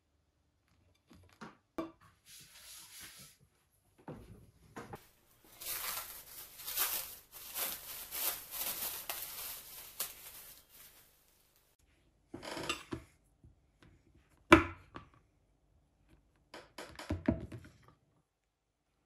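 Plastic wrapper crinkling for several seconds as it is peeled off a block of clay, amid scattered clicks and knocks of handling on a wooden table. Later comes one sharp knock, and near the end a kitchen knife cuts down through the clay onto a cutting mat in a few quick knocks.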